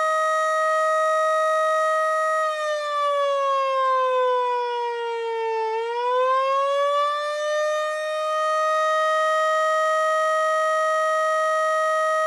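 Miniature Federal Signal STH-10 siren, spun by a Maytag induction motor on a 10 µF capacitor, sounding an attack cycle. The steady single-tone wail sags in pitch for about three seconds as the power is cut, then climbs back to full pitch as power returns and holds there.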